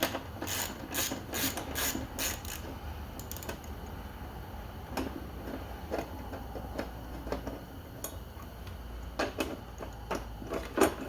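Hand ratchet clicking in quick runs as bolts are backed out, once in the first couple of seconds and again near the end, with a quieter stretch between. A low steady hum runs underneath.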